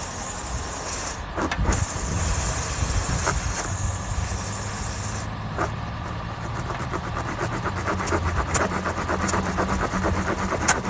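Air hissing out of a punctured car tire around the repair tool, cutting off sharply about five seconds in, over a steady engine hum. In the second half comes a run of quick scraping clicks as the tool is worked in the hole.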